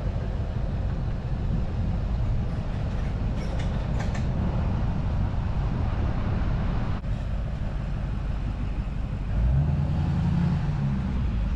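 Steady low wind rumble on a microphone held outside a moving car's window, over the car's road noise; the rumble grows louder near the end.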